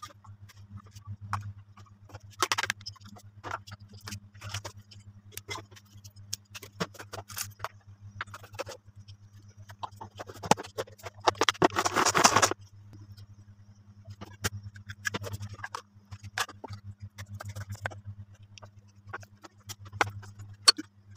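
Kitchen food-prep handling: scattered clicks and knocks of plastic and glass containers and utensils, with a dense rattling whir for about a second and a half midway as a hand-operated manual food chopper chops shrimp and vegetables. A steady low hum runs underneath.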